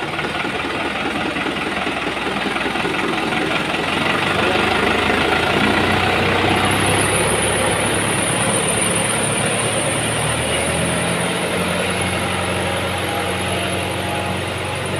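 New Holland TT4.90 tractor's diesel engine running as the tractor pulls away and drives off, growing louder about four seconds in; a high steady whine joins about seven seconds in. This is a test drive after its wet, slipping clutch was repaired.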